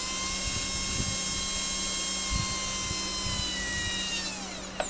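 Lynx EOX 1102 8350 kV brushless motor spinning free under external-ESC drive, its main gear disengaged from the pinion: a steady high-pitched whine that spools down quickly, falling in pitch, near the end.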